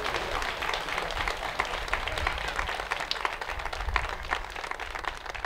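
Crowd applauding, many hands clapping in a dense patter that begins to thin near the end.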